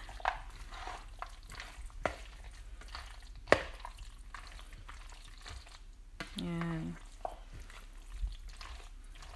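A metal spoon stirring a thick mayonnaise-dressed macaroni salad in a plastic bowl: a wet, squishy mixing noise with scattered clicks of the spoon against the bowl, the sharpest knock about three and a half seconds in. A short voiced hum comes a little past halfway.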